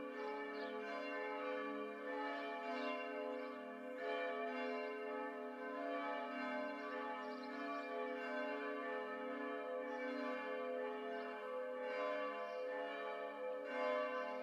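Church bells ringing, several bells together, with fresh strokes every couple of seconds over a continuous ringing hum.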